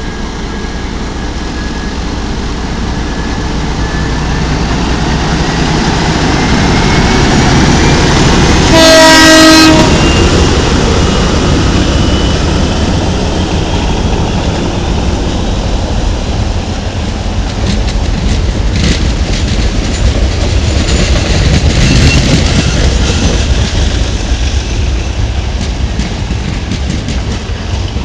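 A Sri Lanka Railways M4-class diesel locomotive and its train passing close by, the engine rumble building as it approaches. A single horn blast of about a second comes some nine seconds in. The carriages then roll past with the clickety-clack of wheels over rail joints.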